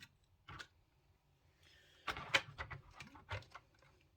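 Hands handling a plastic model railway wagon and its packaging: a single light click about half a second in, then about two seconds in a burst of plastic clicks and rattling lasting about a second and a half.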